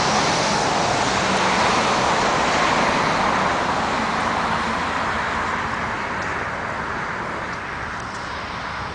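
Rushing vehicle or road-traffic noise, loud at first and gradually fading away.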